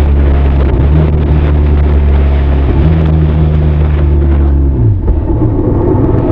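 Benelli TRK 502's parallel-twin engine and exhaust running at a steady cruising speed, heard close to the exhaust. About five seconds in the engine note drops and changes, as when the rider shifts or eases off the throttle.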